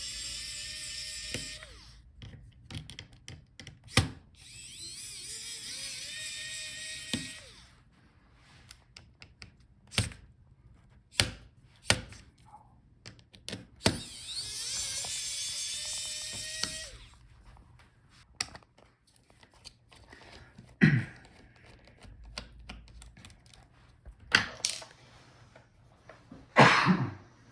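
Small electric screwdriver whirring in three runs of about two seconds each, backing out the laptop's hinge screws. Sharp clicks and knocks of screws and parts being handled come in between.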